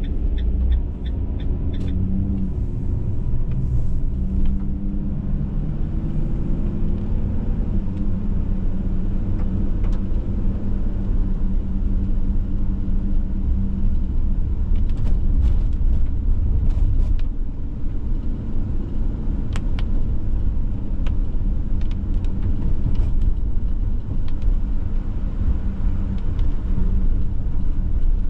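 A van driving on wet city streets, heard from inside the cabin: a steady low engine and road rumble. The engine rises in pitch as the van pulls away over the first several seconds, then holds steady.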